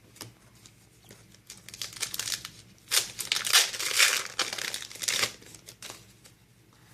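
Foil wrapper of a Yu-Gi-Oh booster pack being torn open and crinkled. The crackling rustle comes in irregular bursts and is loudest about three to four seconds in.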